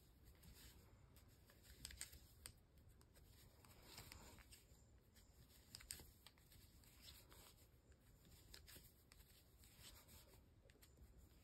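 Near silence with faint soft ticks and rustling of 8 mm wooden circular knitting needles working wool yarn, stitch by stitch.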